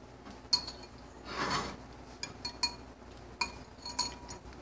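Cutlery clinking against dishes, about five sharp clinks with a short metallic ring, and a brief scrape about a second and a half in.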